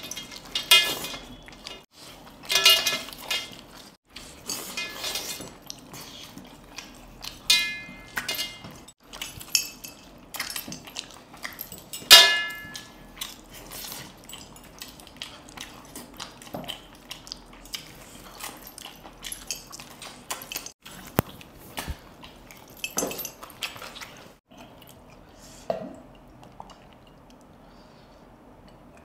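Scattered clinks and scrapes of a spoon and fingers against stainless-steel plates, some strikes leaving a short metallic ring, with the loudest clink about twelve seconds in.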